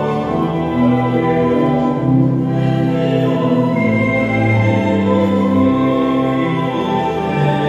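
Slow sacred music from the cathedral choir and its accompaniment: long, sustained chords that move gently from one to the next without a break.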